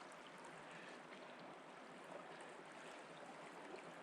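Faint, steady rushing of a river's flowing water.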